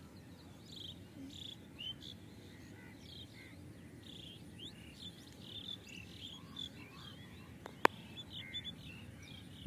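Many small birds chirping and calling in quick short notes over a low steady outdoor rumble, with a single sharp click about eight seconds in.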